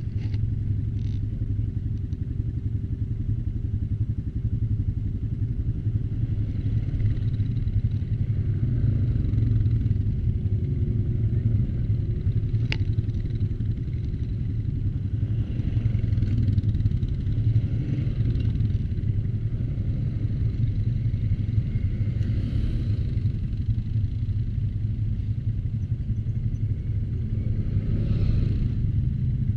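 ATV engine running steadily while under way, rising and falling a little in level, with one sharp click about midway.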